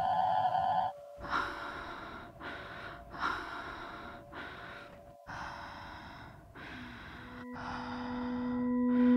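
A woman gasping and breathing hard, several short breaths about two seconds apart, over a faint steady tone. Near the end a low humming drone swells and grows loud.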